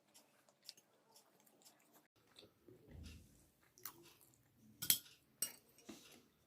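Faint close-up chewing of a mouthful of poha (flattened rice), with scattered short wet clicks and smacks of the mouth; a couple of sharper clicks about five seconds in.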